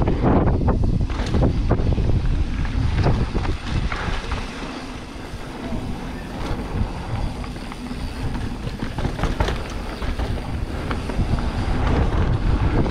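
Mountain bike riding fast down a rough, dry dirt trail: a constant rumble of tyres over dirt and wind on the microphone, with frequent short rattles and knocks from the bike over bumps.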